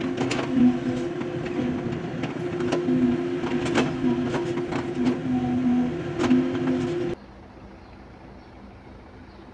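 JCB excavator running under load, its engine hum rising and falling, with repeated metallic clanks and knocks. The sound stops abruptly about seven seconds in, leaving a faint steady background noise.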